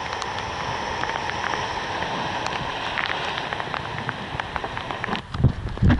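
Surf breaking on a rocky shore: a steady wash of white water, with spray and drops ticking on the camera housing. Near the end come a few low thumps.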